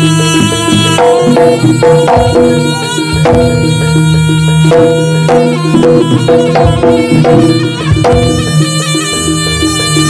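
Live East Javanese jaranan music: a reedy slompret shawm plays the melody over kendang drums and gamelan percussion.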